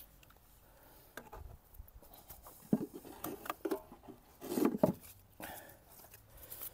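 Irregular knocks, clicks and rubbing of things being handled in a small wooden box, busiest from about three to five seconds in.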